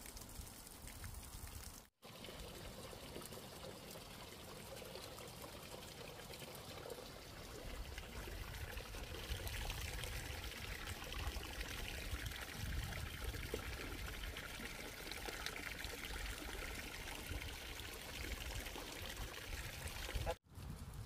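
Water pouring and trickling steadily from an inflow pipe into a pond, a little louder from about eight seconds in. The sound cuts out sharply twice, about two seconds in and near the end.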